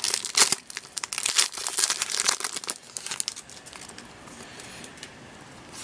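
Card pack wrapper being torn open and crinkled by hand: dense crackling for about the first three seconds, then softer handling.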